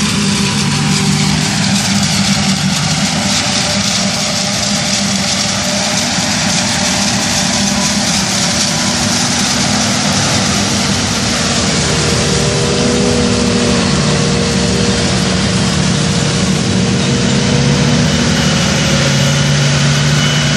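Self-propelled forage harvester running under load as it chops corn for silage: a loud, steady engine drone over a constant hiss.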